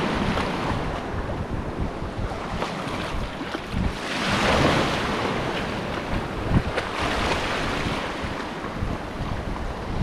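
Surf washing in, with gusty wind buffeting the microphone; the surf swells louder about four seconds in.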